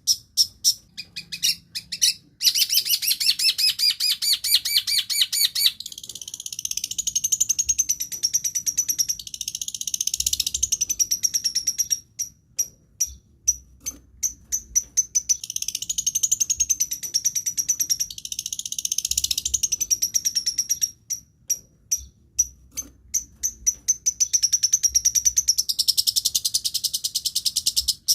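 Long-tailed shrike (cendet) singing a varied mimicking song: fast runs of sharp repeated chirps alternating with dense, wavering high trills.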